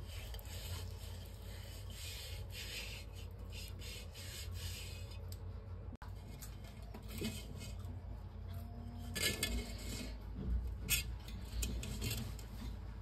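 Fingertips rubbing turmeric onto the rim of an unglazed clay pot, a soft dry scraping rub. A few light clicks and knocks come in the second half.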